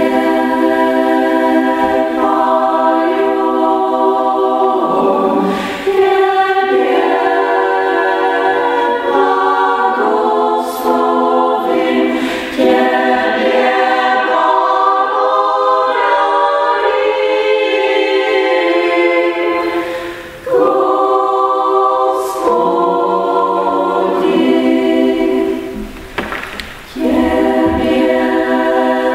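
Small women's choir singing in held chords, in long phrases broken by a few short pauses for breath.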